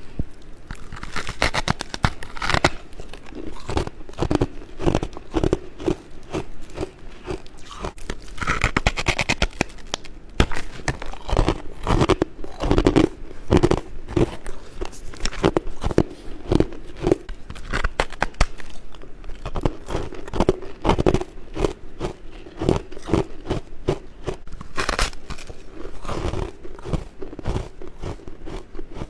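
Someone biting and chewing all-white humidifier frost close to the microphone: a dense, continuous run of crisp crunches, with louder bites every few seconds.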